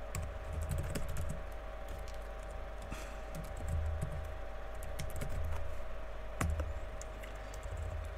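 Typing on a computer keyboard: irregular keystrokes, some in quick runs, over a steady low background hum.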